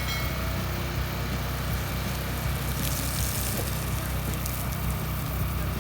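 Tractor engine idling steadily, under the hiss of water spraying from a hose.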